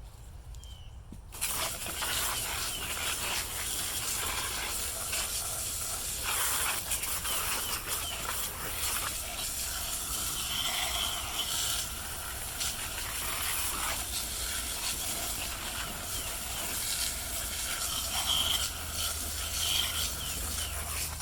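A steady, hissing high-pressure spray blasting dirt out of a chainsaw. It starts suddenly about a second in, then runs on with small swells and dips as the nozzle is moved around.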